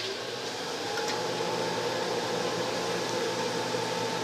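Microwave oven running: a steady hum of its magnetron transformer and cooling fan, with a faint steady whine that comes in about a second in.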